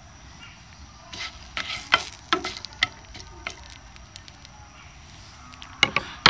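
Whole spices (black cardamom, cinnamon and bay leaf) sizzling in a spoonful of hot mustard oil in a nonstick frying pan, tempering until fragrant. There is a faint steady hiss with scattered sharp crackles, most of them between about one and three and a half seconds in, and a few more near the end.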